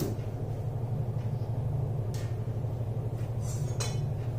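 Steady low background hum with a few faint, short clicks and scrapes, about two seconds in and again near the end.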